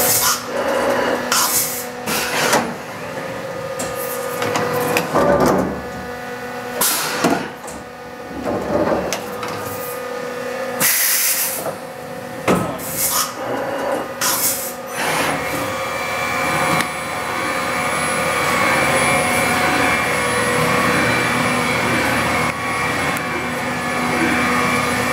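Fanuc RoboDrill T14iA vertical machining center running a cycle. Over its steady machine hum come a series of short, loud bursts of noise at uneven intervals, then from about two-thirds in a steady, dense machining sound carries on.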